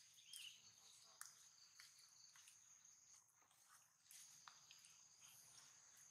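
Near silence outdoors, with a faint, steady, high insect drone, like crickets or cicadas. Scattered faint clicks and one short chirp about half a second in.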